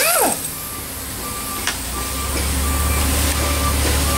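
Pneumatic impact wrench winding down after spinning off a gearbox cover bolt, followed by a backup alarm beeping about twice a second over a low engine rumble, with a single metallic click partway through.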